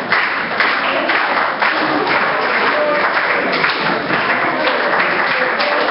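A crowd applauding, with music playing.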